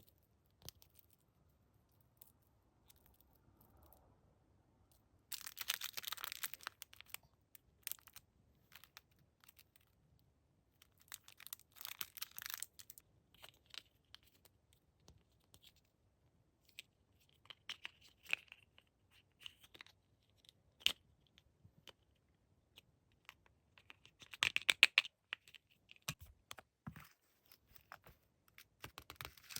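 Packaging being torn open and crinkled by hand in three short bursts, with scattered light clicks and taps between.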